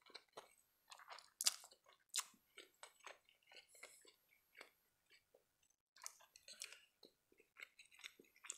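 Close-miked mouth sounds of a man eating spaghetti: slurping strands and chewing, with many soft wet clicks and smacks. Two louder sharp sounds come about one and a half and two seconds in.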